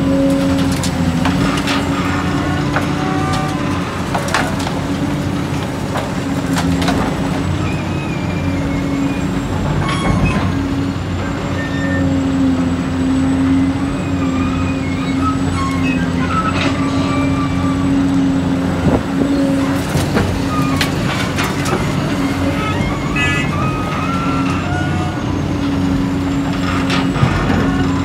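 Heavy diesel construction machinery running steadily at a constant pitch, with scattered clanks and knocks, typical of an excavator loading dirt into a dump truck.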